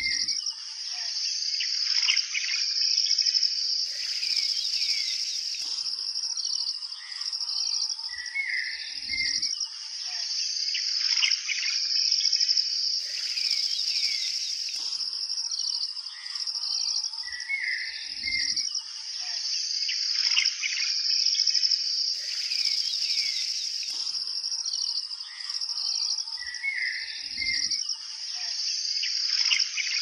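Nature ambience: a steady high-pitched insect chorus with birds chirping and calling over it. The same few seconds repeat about every nine seconds, like a looped recording.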